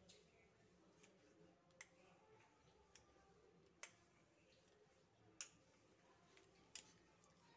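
A few sharp, faint clicks, roughly one every one and a half to two seconds, against near silence: the metal wheel of a pizza cutter meeting the rolling board as it slices strips of dough.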